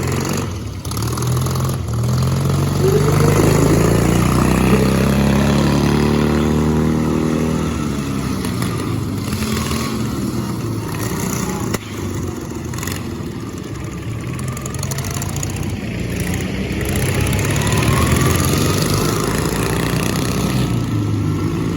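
Racing lawn mower engines running hard. One climbs in pitch a couple of seconds in and then drops away over the next few seconds, and another rises again near the end.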